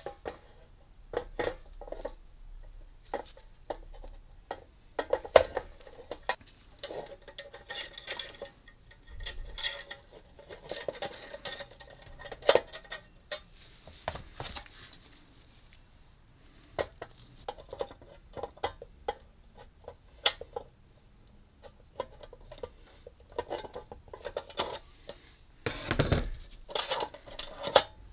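Irregular metal clinks, clicks and scrapes as pliers work the wire clips of a metal carrying handle onto a powder-coated metal lunch box lid, with a cluster of louder knocks near the end.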